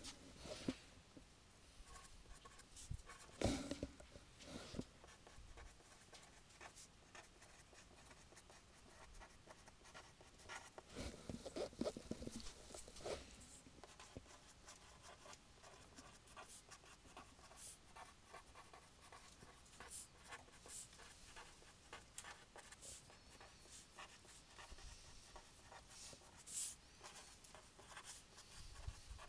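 Faint scratching of writing in an otherwise near-silent room, with a few slightly louder moments around three and twelve seconds in.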